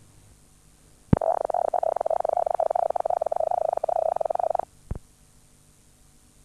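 Videotape playback noise at the end of a recording: a click, then a harsh buzz lasting about three and a half seconds that cuts off suddenly, followed by a second click, over faint tape hiss.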